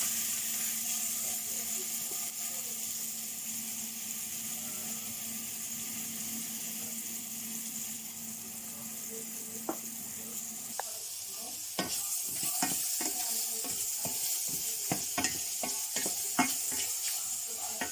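Food sizzling as it fries in a hot pan, a steady hiss. From about twelve seconds in, a utensil clicks and knocks against the pan at irregular intervals as the food is stirred.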